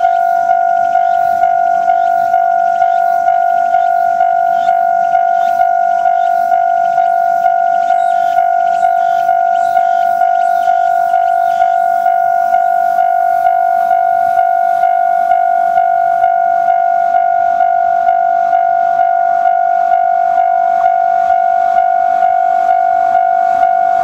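Japanese railway level-crossing warning bell ringing steadily, about one and a half even strikes a second, sounding because a train is approaching.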